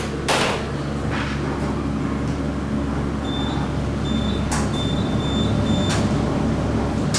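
Elevator car travelling in its shaft: a steady low hum, with a sharp clunk about a third of a second in and a few lighter clicks. A run of short, high-pitched beeps comes around the middle.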